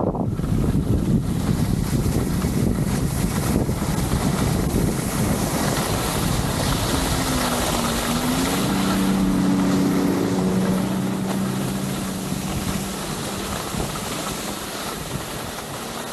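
Wind rushing over the action-camera microphone and skis sliding and scraping on packed snow during a fast downhill run. The noise eases off near the end as the skier slows. From about seven seconds in, a snowmobile engine's steady hum joins for a few seconds.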